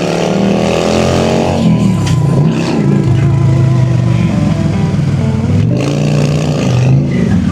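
Honda Shadow V-twin cruiser engine accelerating: its pitch climbs over the first second and a half, then falls and rises again several times as the throttle is rolled off and on.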